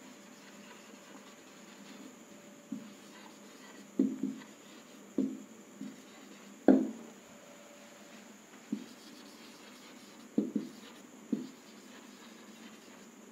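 Marker pen writing on a whiteboard: faint scraping strokes with about ten short, sharp taps of the pen tip against the board, the loudest one about halfway through.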